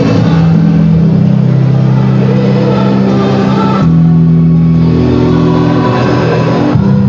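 High-school choir singing held low chords, loud and full in the bass, the chord changing about four seconds in and again near the end.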